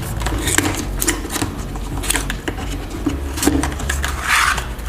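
Hands handling the headset's box and packing pieces: irregular small clicks and taps, with a short rustle near the end, over a low steady hum.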